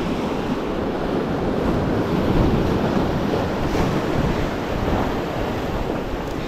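Ocean surf washing and foaming over the boulders of a rock jetty, a steady rushing wash, with wind buffeting the microphone.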